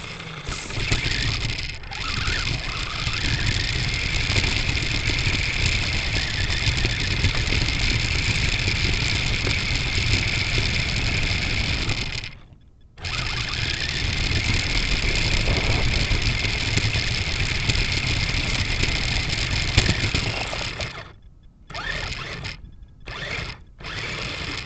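Small electric RC buggy's motor and drivetrain whining steadily under throttle, with rumble and rattle from rough dirt and gravel, picked up by a camera riding on the car. It cuts out briefly about halfway through, and near the end comes in short bursts as the throttle is blipped on and off.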